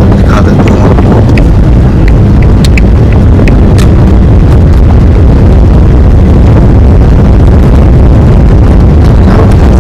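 A vehicle on the move: a loud, steady rumble of engine, road and wind noise, with a few faint clicks.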